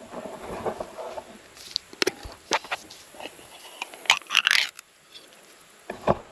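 Handling noise around a brush pile and a wire cage trap: scattered sharp clicks and snaps over faint rustling, with a denser crackling cluster about four seconds in and more clicks near the end.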